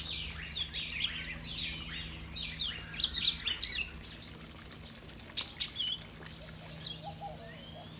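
Small birds chirping and calling in quick, overlapping high-pitched bursts, busiest in the first half, over a faint steady low hum.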